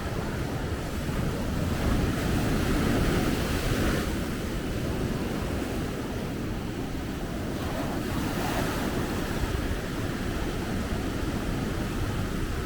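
Sea surf breaking and washing onto a beach: a continuous rush of waves that swells loudest about two to four seconds in.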